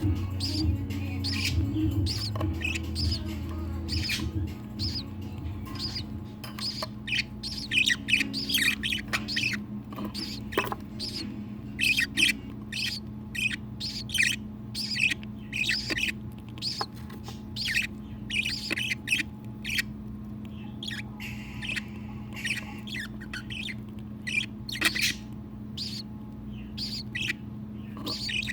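Budgerigars chirping: quick runs of short, high peeps, busiest in the middle, over a steady low hum.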